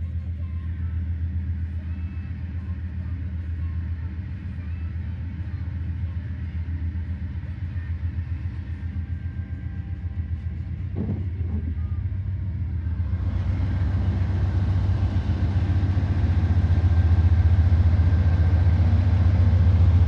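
Diesel locomotives of a freight train, including a GE ES44AC GEVO, running with a steady low engine drone as they approach. The sound grows louder throughout and broadens about two-thirds of the way in as the units near and pass close by.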